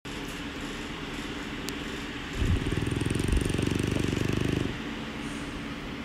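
French bulldog snoring in its sleep: one long, rough snore of about two seconds, starting a little past two seconds in, over a steady hiss.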